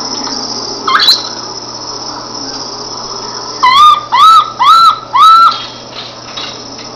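Animal calls: a single short upward-sweeping whistle about a second in, then four loud whistled calls in quick succession, each rising and then falling in pitch. A steady high-pitched background drone runs underneath.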